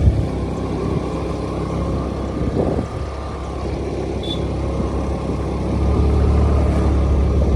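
Small motor scooter running on a ride, a continuous low rumble that grows louder about six seconds in.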